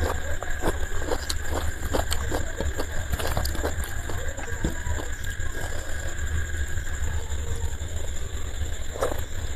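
Close-up eating sounds: soft chewing and mouth clicks as luchi (puffed fried flatbread) and ghugni are eaten by hand. The clicks are dense in the first few seconds, then sparse, with a few more near the end. A steady low rumble runs underneath.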